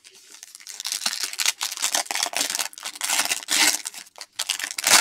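Foil trading-card pack wrapper crinkling and tearing as it is handled and ripped open by hand, in a dense run of crackles that is loudest near the end.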